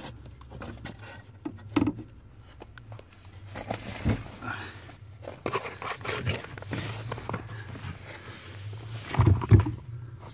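Scattered scraping, rustling and knocking of someone handling things and moving about in a car's driver's-side footwell, with a louder pair of knocks near the end.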